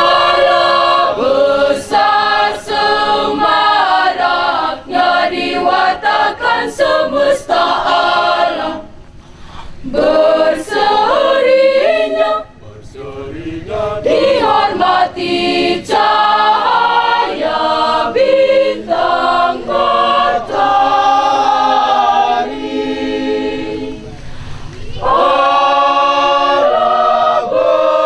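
Mixed choir of women and men singing a cappella, led by a conductor. The singing breaks off briefly about nine and again about twelve seconds in, then comes back in full.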